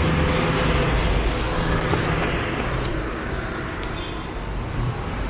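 Road traffic: motor vehicle engines and tyre noise, loudest in the first couple of seconds and then easing a little.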